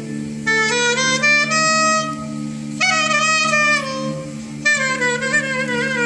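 Turkish classical music ensemble of violins, ud and kanun playing an instrumental passage of a song in makam hicaz: a single ornamented melody sliding between notes over steady low held tones.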